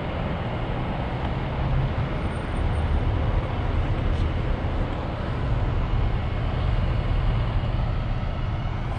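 Steady street noise: a continuous low rumble with hiss above it, with no single event standing out.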